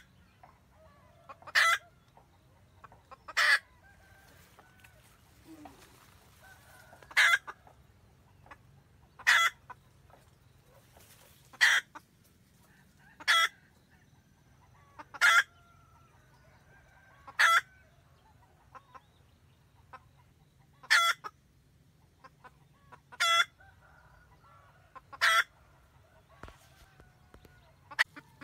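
Red junglefowl hen cackling to call the rooster: a dozen short, sharp calls about every two seconds, with fainter clucks between them.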